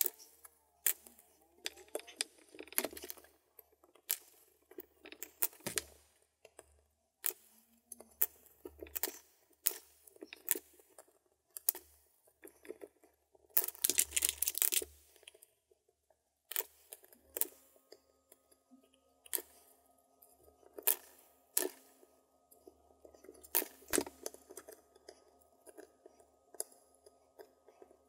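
Hand-stitching a leather wrap onto a wooden hiking stick: thread drawn through the leather and a needle tapping and scraping, heard as irregular clicks, scrapes and rustles with short quiet gaps. A faint steady tone comes in about two-thirds of the way through.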